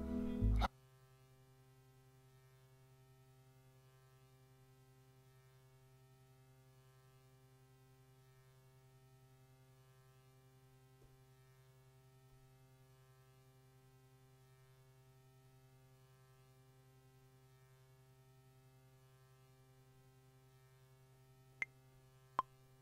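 A low, steady electrical hum from studio equipment, with a faint pulsing in it. A beat cuts off within the first second, and two short sharp clicks come near the end.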